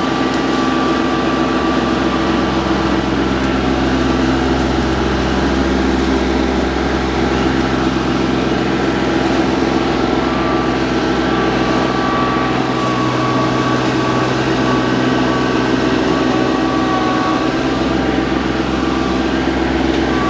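TYM compact tractor's diesel engine running steadily under load as its front-end grapple drags a felled tree through brush.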